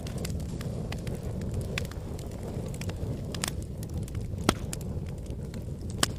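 Fire crackling, with scattered sharp pops over a steady low rumble; the loudest pop comes a little past the middle and another near the end.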